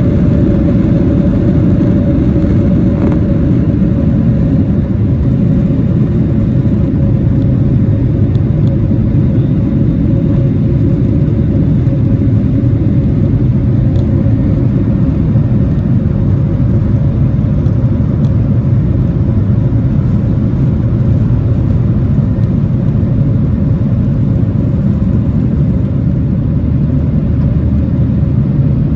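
Boeing 737-800's CFM56 jet engines running steadily, heard inside the cabin as a loud, even rumble with a steady whining tone over it.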